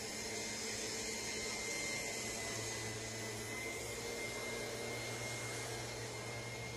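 Steady, even background noise with a low hum and a thin, faint high whine held throughout; no distinct events.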